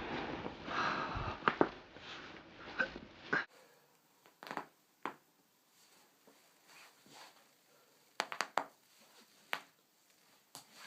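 Joints cracking during chiropractic adjustments. Rustling movement with a few pops comes first, then after a cut there are sharp single cracks in a quiet room: two a little apart, a quick cluster, then two more.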